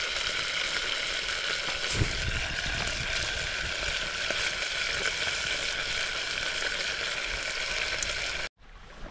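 Beef stir-frying in a hot pan, sizzling steadily, with a single knock about two seconds in. The sizzle cuts off suddenly near the end to a much quieter background.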